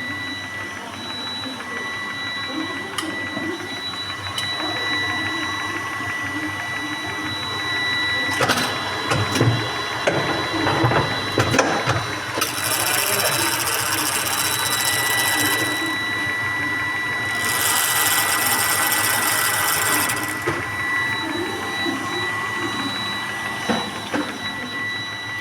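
Paper cutting machine running with a steady whine and mechanical clatter; a run of knocks comes about a third of the way in, followed by two long hissing stretches a couple of seconds apart.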